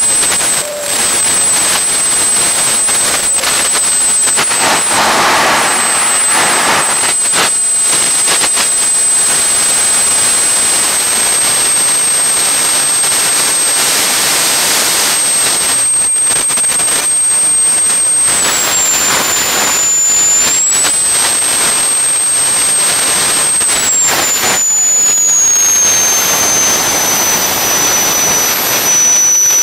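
200-pound-thrust jet engine with a centrifugal compressor running: a steady loud roar with a high-pitched compressor whine. The whine dips in pitch and recovers about two-thirds of the way through, then drops lower near the end as the engine slows, rising again at the very end.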